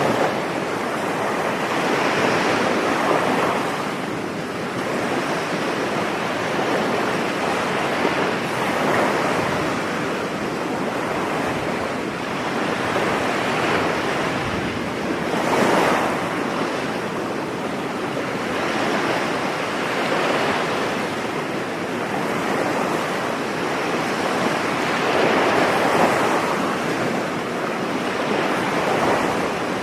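Ocean surf breaking on a beach: a continuous wash of waves that swells and ebbs every few seconds, with the biggest break about halfway through.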